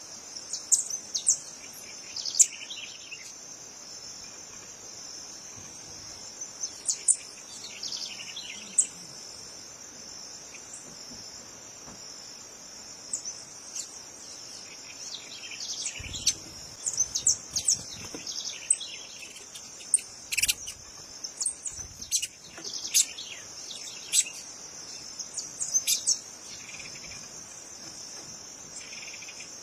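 Steady high-pitched insect drone, with short bird chirps and calls scattered through it, more frequent in the second half.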